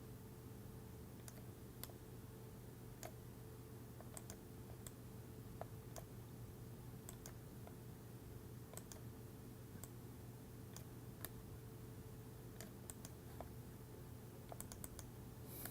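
Faint, irregular clicks of a computer mouse and keyboard during CAD work, a quick run of clicks near the end, over a steady low hum.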